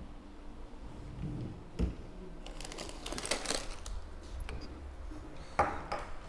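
Faint rustling and handling noises around a kitten and a stethoscope on an exam table, with a soft knock about two seconds in, a stretch of scratchy rustling in the middle and a sharp click near the end.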